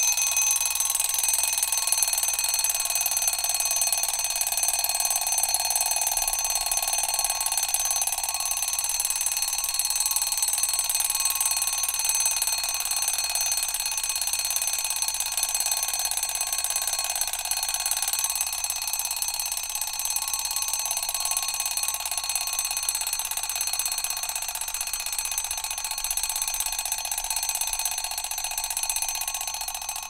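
Mechanical alarm clock bell ringing continuously, a rapid metallic ring that slowly gets a little quieter toward the end.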